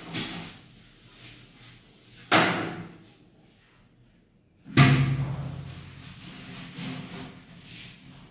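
Knocks and bangs of toilet cleaning on hard fixtures in a tiled bathroom. There is a sharp knock a couple of seconds in, then a heavier bang with a short low boom near the middle, then lighter knocks toward the end.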